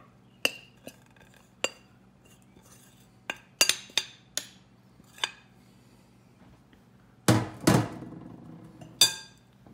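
Glass mixing bowl knocking and clinking against a stone countertop while crumbly scone dough is tipped out of it: a scatter of sharp taps, then three heavier knocks near the end.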